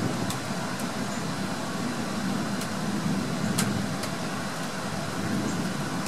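Distant thunder rolling: a low rumble that swells and fades, loudest near the end.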